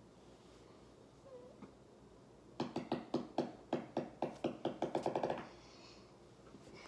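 A young girl laughing: a run of about a dozen quick, pitched laughs that come faster toward the end and then stop, after a couple of seconds of quiet room tone.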